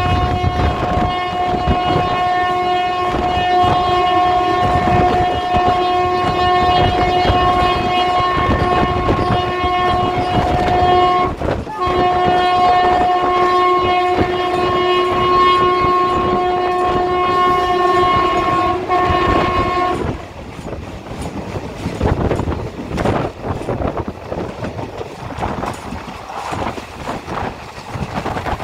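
Express train's locomotive horn blaring continuously for about twenty seconds, with one brief break midway, over the rumble and clatter of the passing coaches, as the train runs through the junction without stopping. The horn then stops, and the rattle and clickety-clack of wheels over rail joints carries on.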